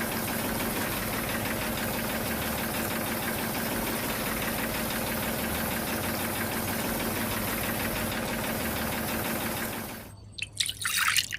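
Small engine or motor running steadily with a fast, even chugging pulse, cutting off about ten seconds in; a few short sharp sounds follow near the end.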